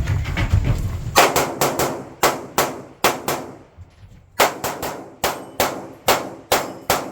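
Rapid gunfire in a practical-shooting stage run: quick strings of shots a fraction of a second apart, with a pause of about a second near the middle.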